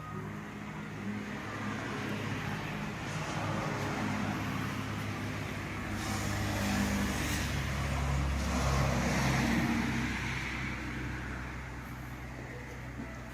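A vehicle engine running, growing louder to a peak about halfway through and then fading again.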